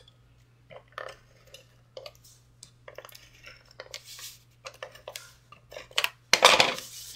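Paper and cardstock being handled and shifted on a craft work mat: light rustles and taps, with a louder paper rustle about six seconds in.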